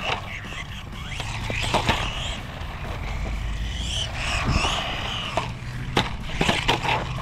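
Blackzon Slyder Turbo, a small brushless electric RC truck, running over skate-park concrete. Its motor whine rises and falls with the throttle over the rolling of its tyres, and several sharp knocks come as it bounces over bumps and lands.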